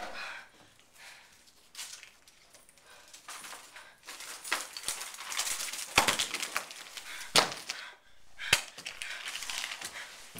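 A handbag being shaken out over a wooden floor: rustling, then its contents (pill bottles, markers, a notebook) clattering down, with three sharp knocks in the second half.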